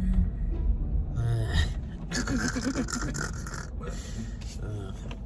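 A person making obnoxious noises while drinking: noisy sips and breathy vocal sounds, loudest in the middle, over a steady low car-cabin rumble.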